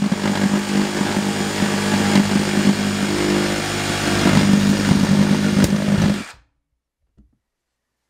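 DEWALT DCS382 cordless reciprocating saw running steadily at speed while cutting through a thin strip of wood lattice. It stops suddenly about six seconds in.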